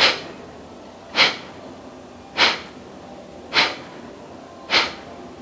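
Five short, forced exhalations through the nose, evenly spaced at roughly one a second. Each is a single kapalbhati pump, done gently and without forcing, as in the correct technique.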